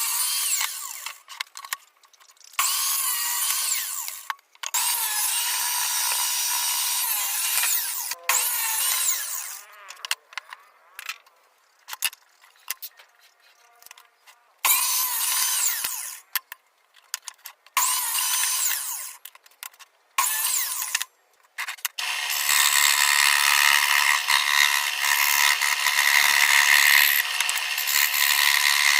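Handheld power tool working wood, run in short bursts of a second or two with pauses, then held on continuously for the last several seconds.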